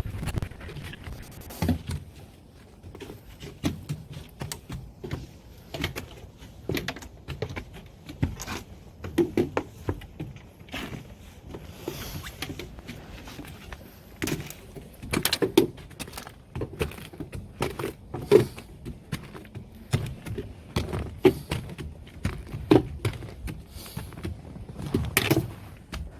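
Footsteps on a snowy mountain trail: irregular crunches and knocks, some louder than others, over a low steady rumble.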